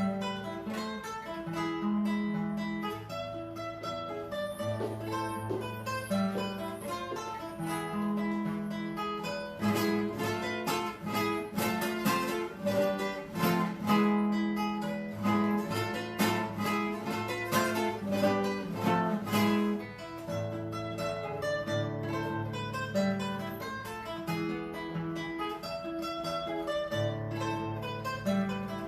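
Acoustic guitar playing, picked notes and chords, with a stretch of rapid strumming in the middle.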